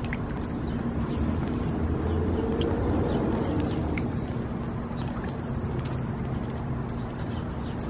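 Outdoor ambience on a wet day: a steady wash of road traffic, swelling as a vehicle passes about two to four seconds in, with scattered faint ticks.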